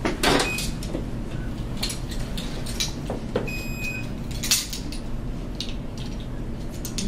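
Scattered light clinks and knocks of metal measuring spoons and a container being handled over a mixing bowl, with a brief high squeak about halfway through, over a low steady hum.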